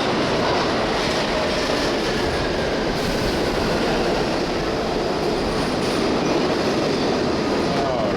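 New York City subway train running through the station, a steady loud rumble and clatter with faint squealing from the wheels.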